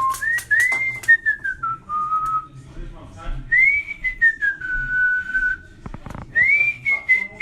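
A person whistling a slow tune: one clear tone that glides up and down in long held phrases with short breaks, with a few scattered clicks.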